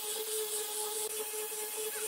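Electric angle grinder with a sanding pad running at a steady whine while sanding a round wooden dowel, with the hiss of abrasive rubbing on wood.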